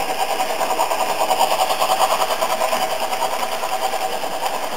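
Märklin model BR 10 steam locomotive's digital sound decoder playing steam chuffs through its small speaker as the train runs, a rapid, even rhythm.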